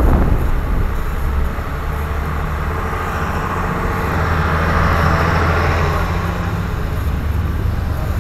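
Box truck's engine running as it drives past close by, a steady low hum with road and engine noise that swells to its loudest about four to five seconds in and then eases off.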